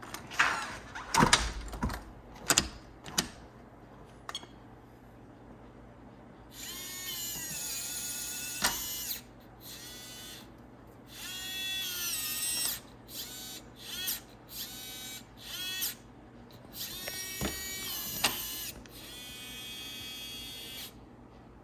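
A few sharp clicks and knocks at first. Then the SimpliSafe Smart Lock's motor whirs in a series of short runs, each a second or two long, its whine bending in pitch as it starts and stops, as it drives the deadbolt while the newly added lock is tested.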